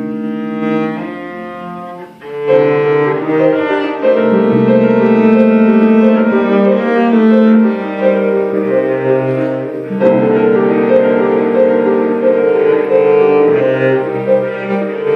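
Live ensemble music led by a bowed cello, with guitar and other instruments under it. The sound thins and dips briefly about two seconds in, then returns fuller and louder.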